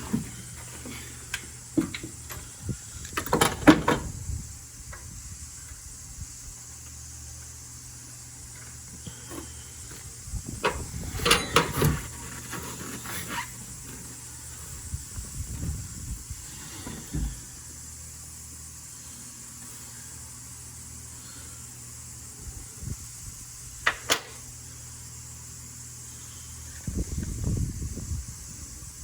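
Scattered knocks, clicks and clatters of tools and engine parts being handled during a spark plug change, over a faint steady hum.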